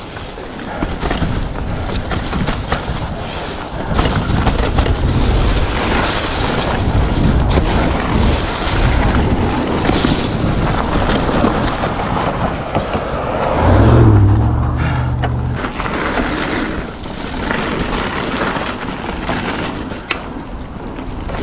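Wind buffeting the camera microphone over the rolling noise of a Polygon Siskiu T7 mountain bike being ridden along a dirt trail. About fourteen seconds in, a low hum lasts a second or so.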